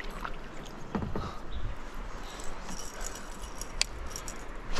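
Light clicks and rattles, with a soft knock about a second in, from fishing gear being handled in a canoe.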